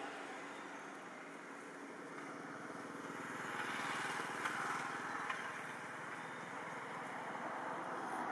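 Steady hum of a distant engine under a wash of outdoor noise, swelling slightly in the middle, with a couple of small sharp clicks about four and a half and five seconds in.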